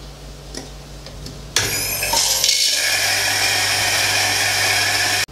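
Electric coffee grinder switching on about a second and a half in and grinding beans into a portafilter: a steady motor whine over grinding noise that stops suddenly at the end.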